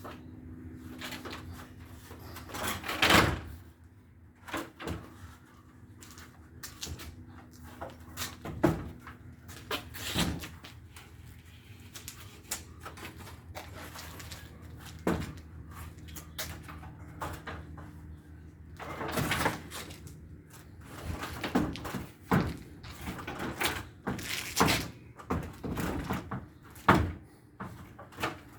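Irregular knocks and bangs on wooden boards, single blows and short runs of strikes, the loudest about three seconds in and near the end, over a faint steady low hum.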